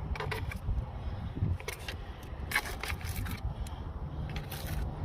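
Short, irregular scraping and brushing noises as dirt is cleared out of a car's plastic air filter housing.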